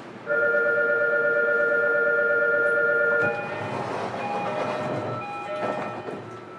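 A loud warning tone heard aboard a JR Kyushu 305 series electric train. It is a held chord of several steady pitches, sounding for about three seconds and cutting off suddenly. It is followed by shorter, fainter tones at changing pitches over the train's running noise.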